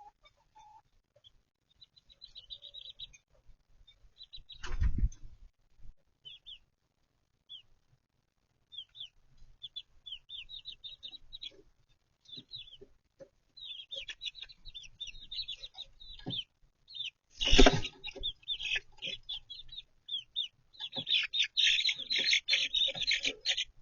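Young chicks peeping in quick high chirps, growing busier and louder near the end, among clucking chickens. Two loud knocks break in, about five seconds in and again, louder, around seventeen seconds in.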